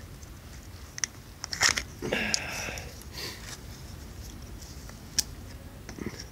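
Snap ring pliers and a snap ring clicking and scraping against the splined PTO stub shaft of a John Deere 4440 as the ring is worked into place. A few sharp metallic clicks, the loudest about a second and a half in, and a short rasping scrape just after two seconds.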